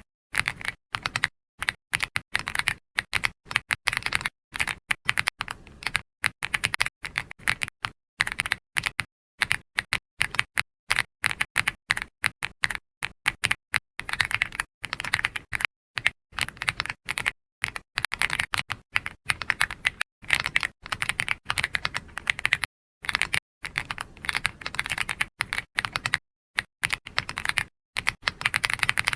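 Computer keyboard being typed on continuously, fast runs of keystrokes broken by short pauses.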